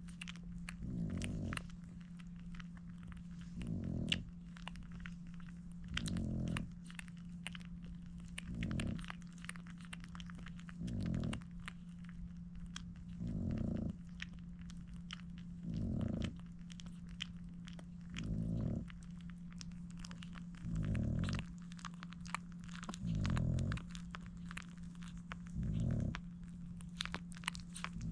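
Newborn French bulldog puppies suckling at their mother, a dense run of small wet smacking clicks. Under it comes a slow, regular heavy breathing, one breath about every two and a half seconds, over a steady low hum.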